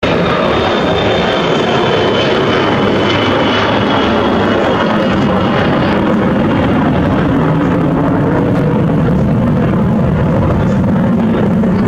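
Boeing E-3A AWACS flying past low, its four TF33 turbofan engines giving a loud, steady jet roar with a deep rumble. A thin high whine in the engine noise slowly falls in pitch over the first several seconds.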